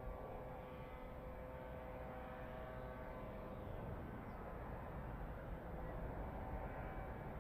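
Steady low rumble of the Cumbre Vieja volcanic eruption, with a faint steady hum over it that fades out over the first three seconds.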